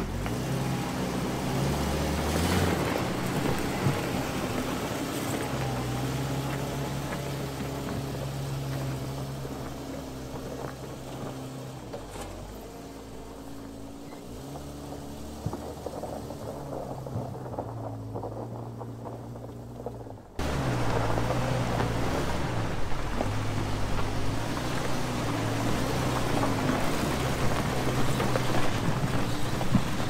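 Jeep Cherokee XJ running as it drives across a gravel yard, under background music with a stepping bass line. The sound cuts abruptly about twenty seconds in and comes back louder.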